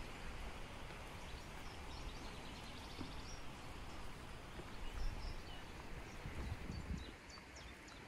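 Outdoor ambience: a steady noisy hiss with small birds chirping now and then, and a few low rumbles about five and seven seconds in.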